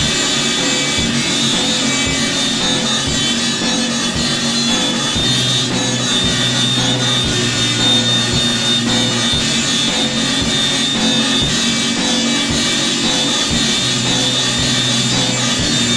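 Instrumental rock music: a steady drum beat under dense, sustained layered tones, with no singing.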